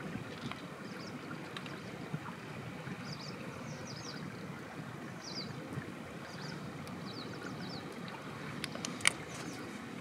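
Outdoor ambience: a steady low rushing noise, with a few short high chirps in the middle and a single sharp click about nine seconds in.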